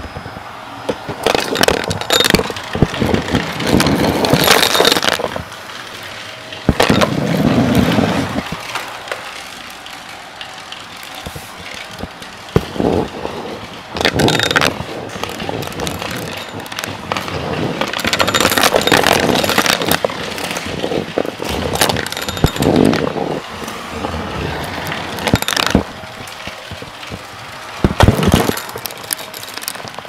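Bagless upright vacuum cleaner running while it sucks up confetti and small debris, with irregular crackling and rattling as the bits are drawn in. The noise swells and drops in uneven bursts as the vacuum is pushed over the pieces.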